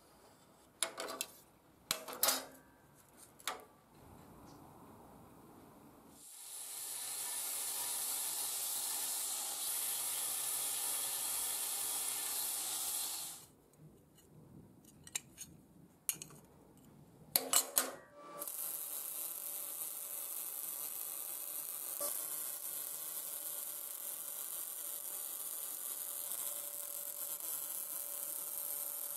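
Steel plates clinking on a steel table, then a steady hissing cutting noise for about seven seconds, more clinks, and from about two-thirds of the way through a welding arc running steadily for the last ten seconds.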